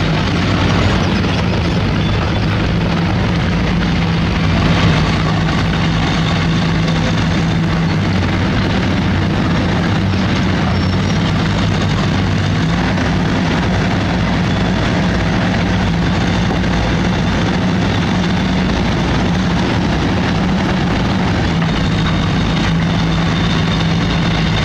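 Diesel engine of heavy construction machinery running steadily, a loud low engine hum over dense mechanical noise, shifting slightly in pitch now and then.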